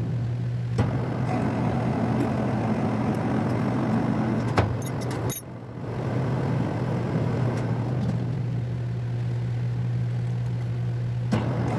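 Metal lathe running steadily with a low motor and gearbox hum while a single-point tool cuts a coarse thread on a steel round bar, with a few light clicks.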